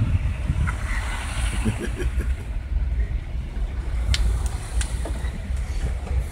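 A car driving slowly, heard from inside: a steady low rumble of engine and road noise, with two sharp clicks about four to five seconds in.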